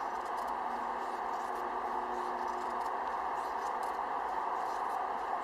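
Steady hiss of falling rain, with faint light pattering of drops.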